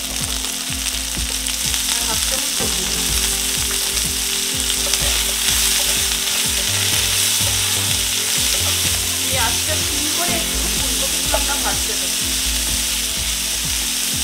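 Cauliflower florets sizzling in hot oil in a nonstick kadai, stirred with a wooden spatula that scrapes and knocks against the pan again and again.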